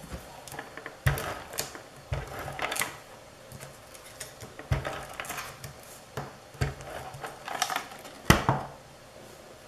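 Crafting supplies and a plastic handheld tool being handled and set down on a tabletop: irregular light clicks, paper rustles and knocks, with the loudest knock near the end.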